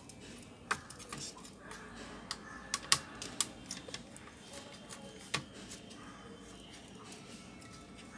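Irregular small clicks and taps of fingers and a screwdriver handling a Toshiba Satellite C640 laptop's motherboard and heat-pipe cooler, the sharpest click about three seconds in.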